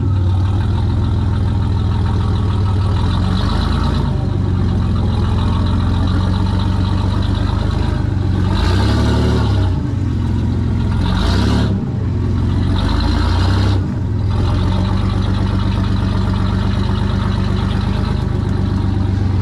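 Off-road 4x4's engine running steadily under load, revving up briefly three times about halfway through.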